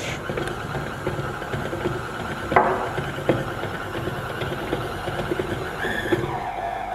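KitchenAid Artisan stand mixer running, its motor whining steadily while the beater knocks and slaps through a stiff cookie dough in the steel bowl. About six seconds in, the speed lever is pulled back and the whine drops to a lower pitch.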